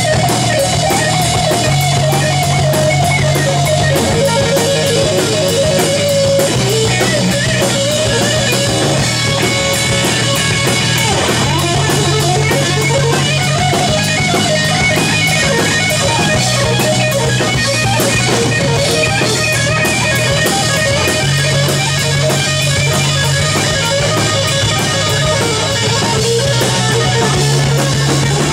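Live rock band playing an instrumental passage: electric guitar playing a lead line of sustained, bending notes over bass guitar and a drum kit.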